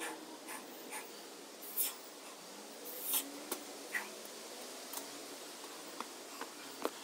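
A man getting up after a set of push-ups: a few short scuffs and puffs of breath, and several light clicks, over a faint steady hiss.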